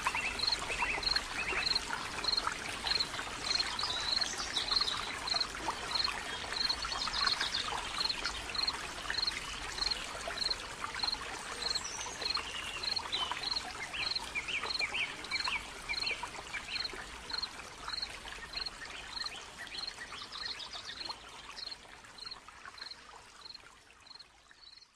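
Outdoor ambience of birds calling: scattered chirps and a single high note repeated about every two-thirds of a second, over a steady rushing hiss. It all fades out near the end.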